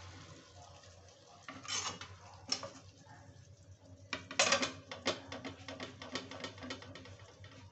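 Kitchenware clattering as a plate is set down over a steel kadhai of chicken curry to cover it. There are two knocks about two seconds in, the loudest clatter about four and a half seconds in, and then a run of light taps.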